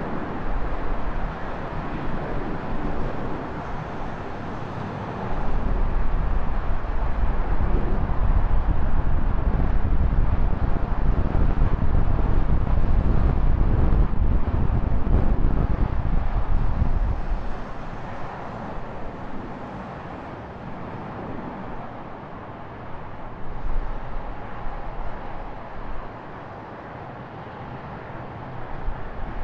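Traffic noise and wind on a bike-mounted camera's microphone, with a heavy low rumble that swells about five seconds in and drops away about seventeen seconds in.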